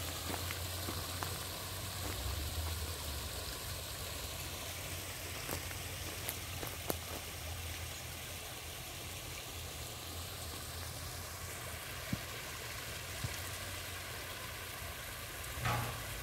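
Water of a small rock-lined stream running and trickling over stones, a steady rushing hiss, with a constant low rumble underneath and a few faint clicks.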